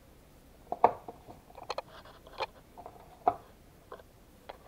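A few short knocks and clinks of kitchen things being handled on a worktop, the loudest about a second in.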